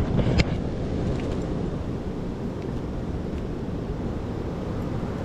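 Steady rushing of water pouring over a dam, with a sharp click near the start.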